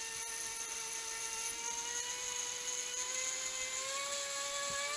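Eachine E160 RC helicopter's electric motors whining on the bench, the pitch rising slowly and steadily as the throttle is eased up.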